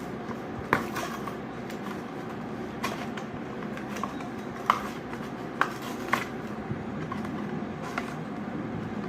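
Kinder Surprise packaging being handled and opened: a few scattered sharp crackles and clicks, about six in all, over a steady low room hum.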